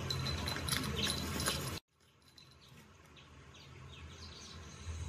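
Outdoor birdsong and chirping played back through a laptop's speakers. It cuts off abruptly a little under two seconds in, then fades back in quietly with a few short chirps.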